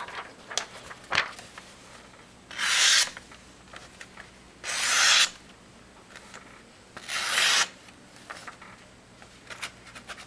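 A freshly sharpened knife blade slicing through a sheet of paper three times. Each cut is a short rasping hiss of about half a second, and light clicks of the paper being handled fall between the cuts. The clean cuts show the edge is sharp.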